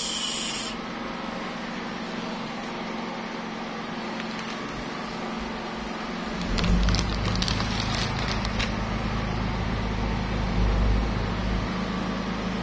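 Clear plastic wrapping crinkling as it is handled and pulled off a bench-top analyzer, with sharp crackles. A low rumble comes in about halfway through.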